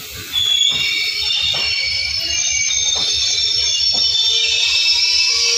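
Indian Railways passenger coaches rolling slowly by with a high-pitched metallic squeal from the wheels, several squeal tones overlapping. A few sharp knocks come through under the squeal, and it gets loud about half a second in.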